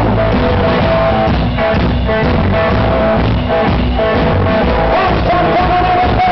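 Live rock and roll band playing: electric guitar over a drum kit, with held guitar notes and a steady beat.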